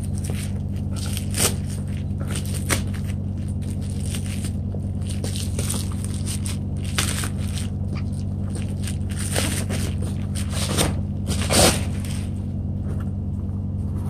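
Bubble wrap crinkling and rustling in irregular bursts as it is cut and pulled off a cardboard box, with a louder crackle near the end, over a steady low hum.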